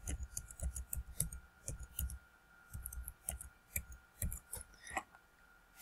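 Typing on a computer keyboard: a run of irregular, light keystroke clicks, with a short pause about two seconds in.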